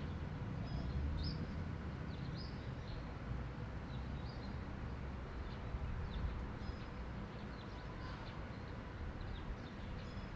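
Outdoor ambience: birds chirping now and then over a steady low rumble of wind or distant traffic.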